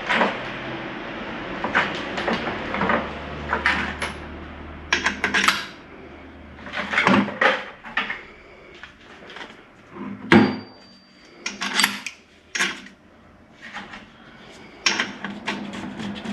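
Metal parts and tools clinking and clanking in an irregular series of sharp knocks as a motorcycle wheel is handled at a wheel balancer. One strike about ten seconds in rings on for about a second. A low hum stops about seven seconds in.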